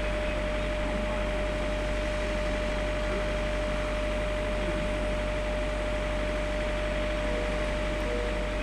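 JR Freight EF66 electric locomotive standing still with its blowers running: a steady rushing noise with a constant hum-tone over it.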